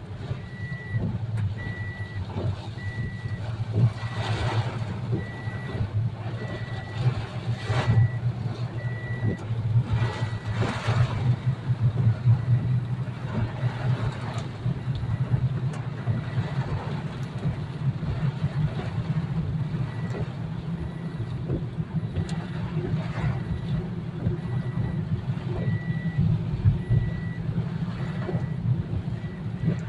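Storm wind buffeting the microphone, a heavy low rumble that surges in gusts several times. Through it a short electronic beep repeats steadily about once a second.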